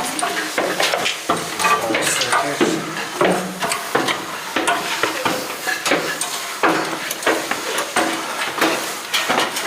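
Irregular scraping, rustling and clattering, with many sharp clicks and knocks, as people squeeze through a tight passage.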